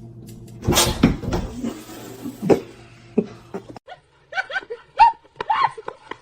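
A loud noisy clatter about a second in, then a run of short, bending-pitch calls from a pet animal.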